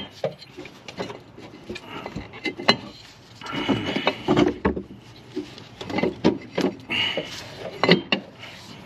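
Scattered knocks, clicks and scraping of metal parts as the old transmission mount is worked loose and pulled out, with a few short metallic squeaks.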